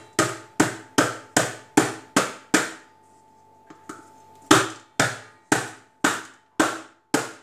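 Hand tapping the bottom of an upturned stainless steel cake tin resting on a steel plate, to loosen the baked cake so it drops out: a run of sharp metallic knocks about two or three a second, each with a short ring, a pause of a second or two, then a second run of knocks.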